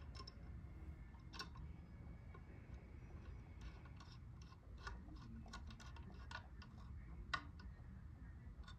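Faint, irregular light clicks and taps of small fan parts and screws being handled while a ceiling fan blade is fitted, with one sharper click near the end.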